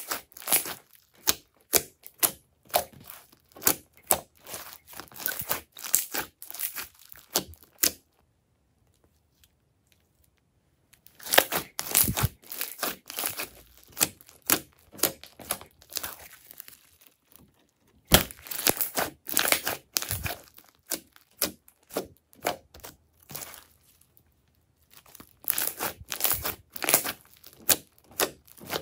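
Crunchy slime with small beads mixed in, squeezed and pressed by hand: runs of crackling pops and squishes, with a pause of about three seconds about a third of the way in and a shorter one near the end.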